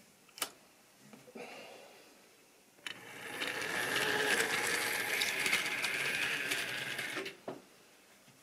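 A model railway train rolling past close by, its wheels rattling over the track with a small motor's whine. It builds up about three seconds in and fades out about four seconds later, after a few faint clicks.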